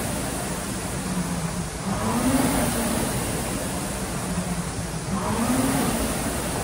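Concept2 rowing machine's air-resistance fan flywheel whirring under steady rowing, swelling and rising in pitch with each drive, about one stroke every three seconds.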